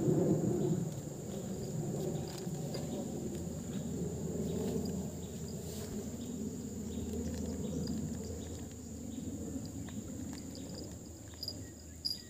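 Night insects, crickets or similar, trilling steadily at a high pitch over a louder low rumble that fades towards the end, with a couple of small clicks near the end.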